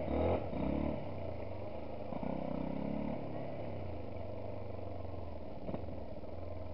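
Yamaha WR125 dirt bike's engine running as the bike rides along a gravel track. The engine picks up briefly about a second in and again two to three seconds in, and there is a small knock near the end.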